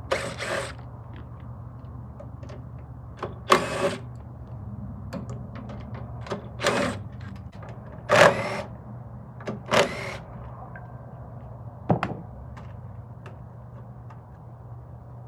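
Hand tools and metal covers clanking and rattling in short, separate bursts while the snowblower's engine covers are unbolted, over a steady low hum.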